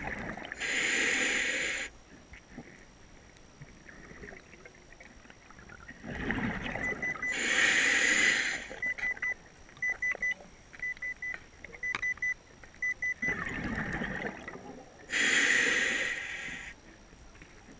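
Scuba diver breathing through a regulator underwater: three breaths about seven seconds apart, each a loud hiss with a rumble of bubbles. A run of short high beeps sounds between the second and third breaths.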